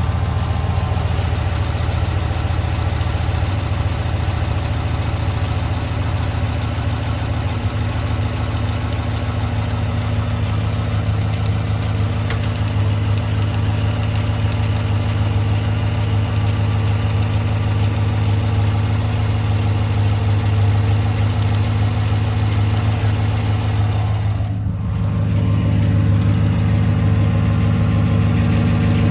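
2018 Chevrolet Silverado 1500's 5.3-litre V8 idling, with a steady rapid ticking over the engine note. The owner suspects the lifters or the AFM camshaft.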